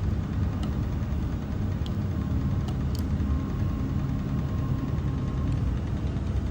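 Steady low hum of running machinery, with a few faint clicks and a faint thin whine through the middle.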